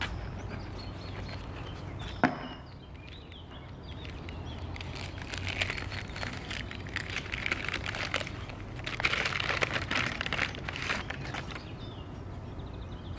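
Brown kraft-paper wrapping crinkling and rustling as a package is unwrapped by hand, in two spells of handling. A single sharp click about two seconds in is the loudest sound.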